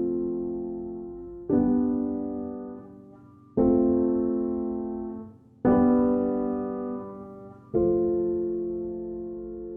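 Background piano music: slow sustained chords, a new one struck about every two seconds and each fading out before the next.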